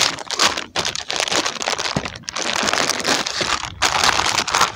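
Plastic soft-bait packets crinkling as hands rummage through a tackle bag, in stretches with brief pauses.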